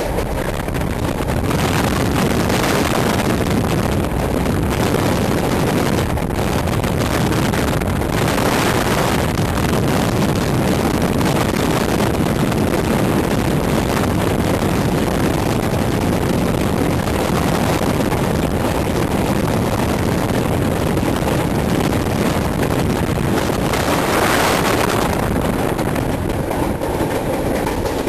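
Passenger train running over a long river bridge, heard from an open carriage window: a steady, loud rumble of wheels on the rails mixed with wind rushing over the microphone, with stretches of louder hiss.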